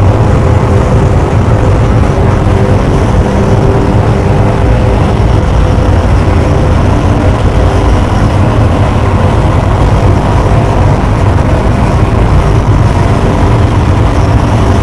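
Harsh, loud, unbroken noise from contact microphones: a calculator scraped against sandpaper on top of a TV set, together with an angle grinder cutting holes through a car tyre, amplified into one dense wall of rumble and grind with a few steady tones running through it.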